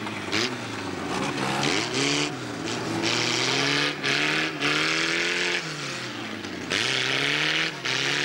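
Several old autocross cars' engines revving hard on a dirt track, their pitch rising and falling again and again, with repeated second-long surges of loud rasping exhaust noise.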